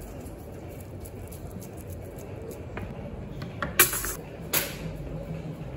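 Flat metal kebab skewers clinking sharply as they are set down against other skewers, twice, about four seconds in and again half a second later. Before that, faint soft pats of hands pressing minced meat onto a skewer, over a low steady hum.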